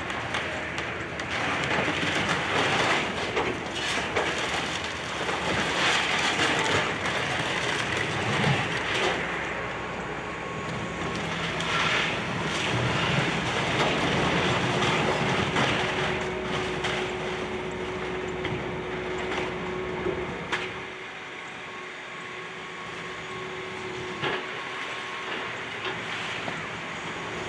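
Excavator demolishing a building: its engine runs under load while debris crunches and grinds. A steady tone holds for several seconds in the second half, a sharp knock follows, and then the noise eases off.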